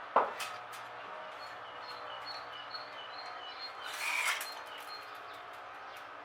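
A small bird chirping a quick, evenly spaced run of short high notes, over steady outdoor background noise. A sharp knock comes just after the start, and a brief rasping burst comes about four seconds in.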